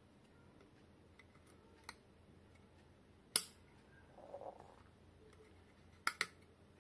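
A few sharp clicks and taps of small hard objects being handled on a workbench: one click about two seconds in, a louder one about three and a half seconds in, and a quick pair of clicks near the end, over a faint steady background.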